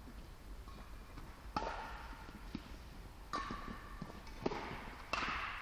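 Badminton rally: rackets striking the shuttlecock, sharp smacks roughly every one and a half to two seconds, each ringing on in the echo of a large hall.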